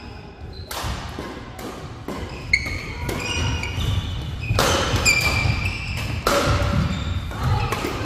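Badminton doubles rally: a string of sharp racket hits on the shuttlecock, with short shoe squeaks on the court floor and footfalls between the shots.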